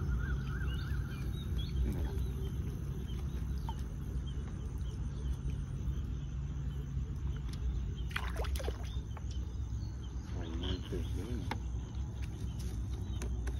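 Steady low outdoor rumble with faint bird calls, and a few short splashes of water about eight seconds in as a fisherman wades into the shallows with his lift net and catch.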